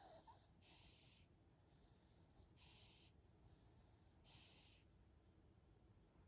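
Maltese dog snoring faintly in its sleep: three airy breaths, one roughly every second and three quarters.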